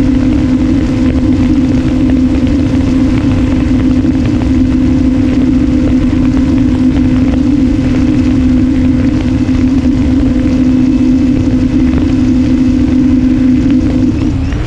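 Strix Strato-Surfer flying wing's electric motor and propeller, a loud steady hum with wind rushing past the onboard camera. Just before the end the note breaks off and drops lower, as the radio link goes into receiver failsafe.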